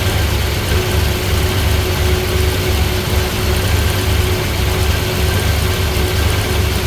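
Engine idling with an uneven, lumpy low beat: a misfire. A thin steady whine runs above it.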